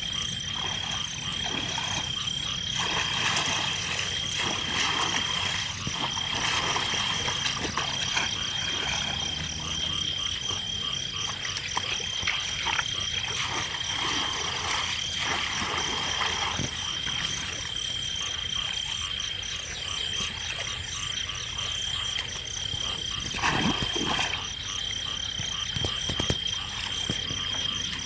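A chorus of frogs croaking over a steady high-pitched drone, with a pair of short knocks about four-fifths of the way through.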